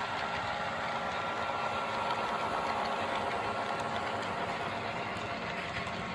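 Model train locomotives running on the track: a steady whir of small electric motors with the wheels rattling over the rails. It grows a little louder around two to three seconds in.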